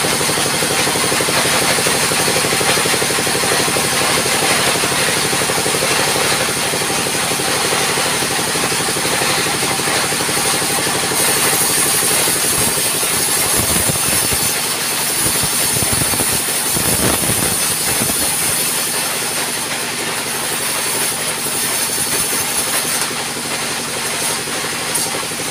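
Engine-driven band sawmill running steadily: a continuous engine hum under a high hiss from the saw. Uneven knocks and rumbles come around the middle as the log is shifted on the carriage.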